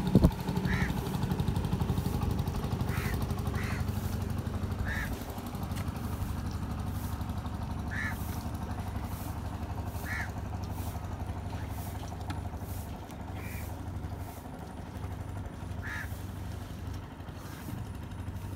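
Steady low hum of a wooden boat's inboard engine running on the lake, a little louder at the start, with a bird giving about eight short calls at irregular intervals over it.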